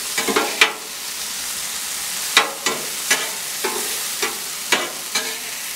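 Thin-cut carne asada sizzling on a Blackstone steel griddle top while two metal spatulas scrape and clank against the plate, about ten sharp clinks over a steady hiss of frying.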